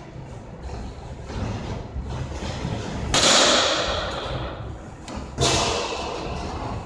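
Two sharp impacts in a batting cage, a baseball being hit or striking the cage: the louder crack comes about three seconds in and rings out in the large hall, and a second, weaker impact follows about two seconds later.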